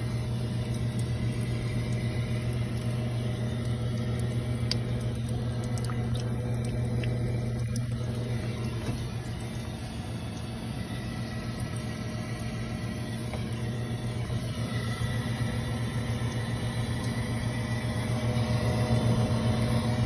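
Furnace blower running with a steady low hum.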